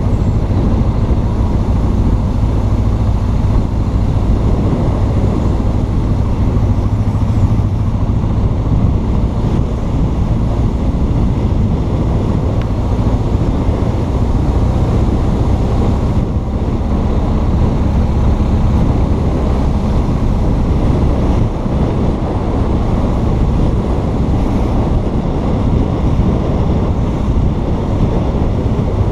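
BMW R1200 GS Adventure's boxer twin engine running steadily while riding, mixed with heavy wind rush on the microphone.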